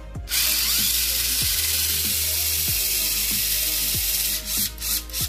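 Mini 4WD chassis (Daxing replica Mach Frame) running free in the hand: a loud, steady whir of the small electric motor and spinning gearset, switched on about a quarter second in and faltering briefly a few times near the end. The gearset is ungreased, so the sound is somewhat rough, at fairly high RPM.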